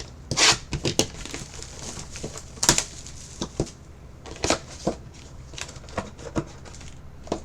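Packaging crinkling and rustling in short, irregular crackles as a sealed box of trading cards is unwrapped and opened.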